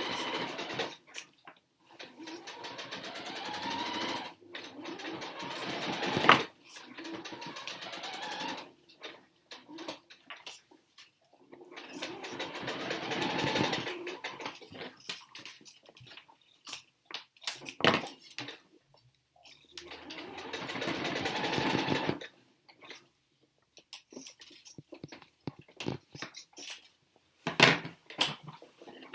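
A small motor runs in bursts of a few seconds, rising in pitch as it speeds up, with scattered clicks and knocks in the pauses between runs.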